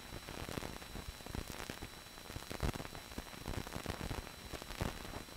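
Faint steady hiss with scattered crackles and a thin steady high tone: the surface noise of an old film soundtrack between narration lines.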